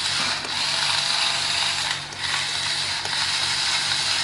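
Electric drill running, boring into a small plastic wall plug, with a brief dip in the noise about two seconds in.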